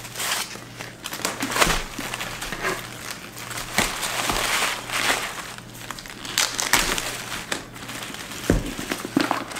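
Packaging wrap crinkling and rustling in irregular bursts as a new handbag and its strap are unwrapped, with a few sharp clicks.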